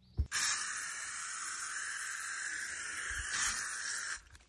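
Aerosol spray can sprayed onto a sock and boot in one continuous hiss of about four seconds that cuts off suddenly near the end, after a short click as the nozzle is pressed.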